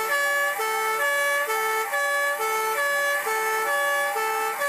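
Dutch fire engine's two-tone siren, switching evenly between a low and a higher note, one full low-high cycle a little under a second, heard from inside the cab.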